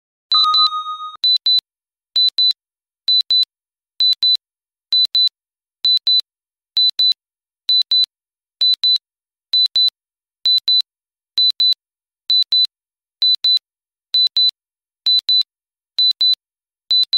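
Countdown timer alarm going off at zero: a brief lower tone fading out near the start, then high-pitched electronic beeps in quick pairs, repeating about once a second.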